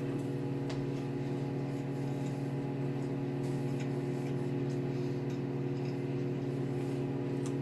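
Microwave oven running: a steady electrical hum with a few faint clicks.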